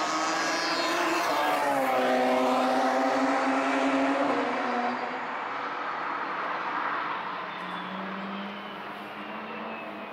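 A car on a race track passing at speed: its engine note drops in pitch as it goes by, then fades away. Another car's engine rises faintly near the end.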